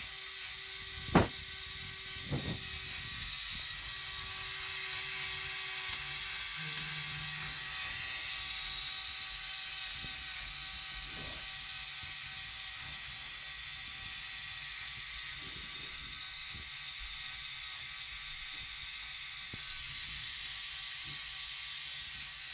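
Lego Technic 42055 bucket wheel excavator running under its own electric motor: a steady whir of the motor and plastic gear train turning the bucket wheel and conveyors, with fine ratchet-like clicking. A sharp knock about a second in and a softer one a second later.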